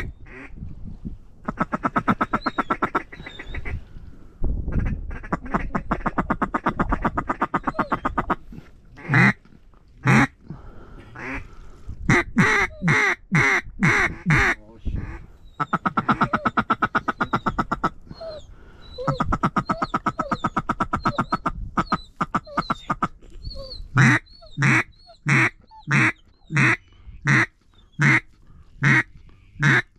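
Mallard-style duck call worked hard: loud single quacks alternating with long runs of fast feed chatter, and near the end a string of about eight evenly spaced loud quacks, calling to ducks circling the decoys.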